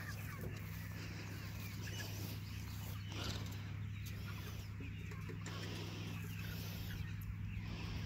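A flock of meat chickens clucking and peeping, over a steady low hum.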